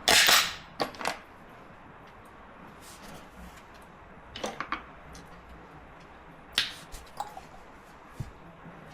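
A short, loud burst of noise right at the start, then scattered sharp clicks and clanks of tools and metal parts being handled during a rear shock swap.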